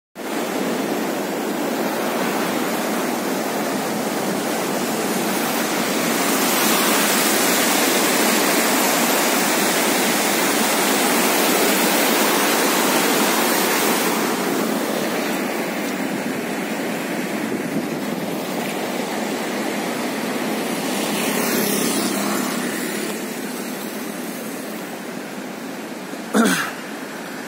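Steady rush of water from a river in flood, swollen by heavy rain. A brief knock comes near the end.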